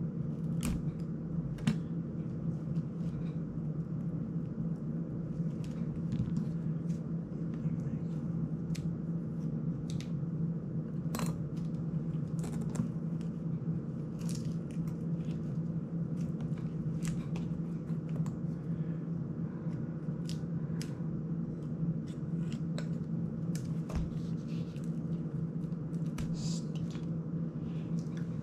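Scattered small clicks and taps of a small screwdriver, tiny screws and the plastic frame of an FPV drone being handled on a workbench, over a steady low hum.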